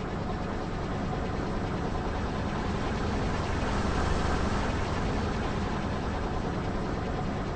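Car running and rolling slowly: a steady engine rumble with road hiss that swells a little about halfway through.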